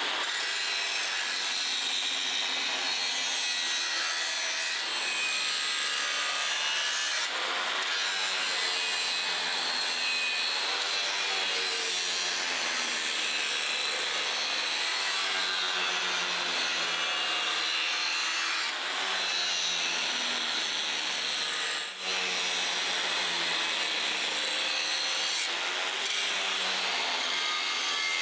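A power tool grinding the steel knife blade: a continuous abrasive hiss with a lower tone that wavers in pitch as the pressure changes, broken off briefly twice.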